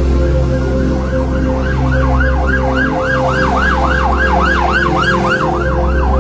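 Emergency-vehicle siren on a fast yelp, its pitch sweeping up and down about three times a second. It swells in about a second in and fades near the end.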